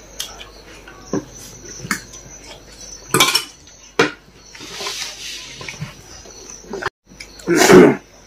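Spoon and cutlery clinking and knocking against dishes during a meal, in scattered single clicks. A louder, rough burst comes near the end.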